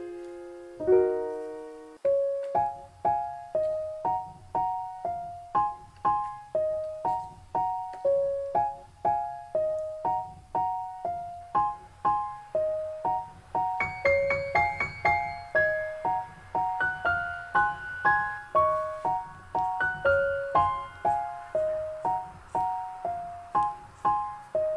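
Background piano music: a gentle melody of evenly paced struck notes, with higher notes joining about halfway through.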